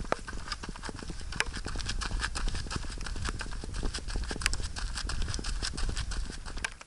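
Running footsteps on a loose dirt and gravel track, a fast run of footfalls, over a steady low rumble on the microphone of the runner's hand-held camera.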